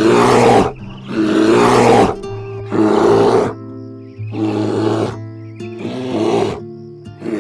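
A bear growling and roaring in harsh bursts, about six times at roughly even intervals, over steady background music.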